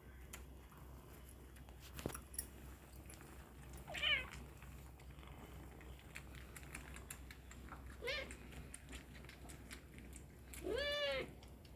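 A kitten mewing three times, two short mews and a longer, louder one near the end, with faint small clicks between them.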